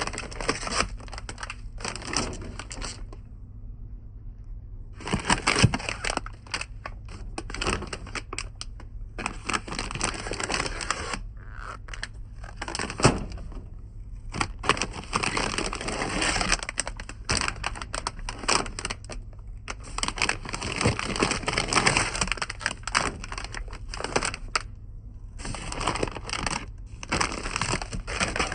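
Plastic snack packaging crinkling and rustling in irregular bursts as it is handled, with scattered light knocks and a steady low hum underneath; the crinkling pauses briefly twice.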